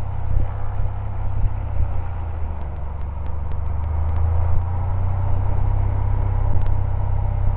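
The Continental O-470 flat-six engine of a 1957 Cessna 180 running at run-up power during the pre-takeoff propeller check. Heard from inside the cabin as a steady low drone.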